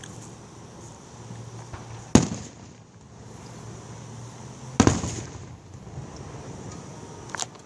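Fireworks display: two loud aerial shell bursts about two and a half seconds apart, each trailing off after the bang, then a couple of smaller cracks near the end.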